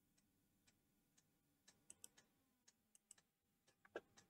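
Near silence with faint, scattered computer mouse clicks; two a little louder about two seconds in and one more near the end.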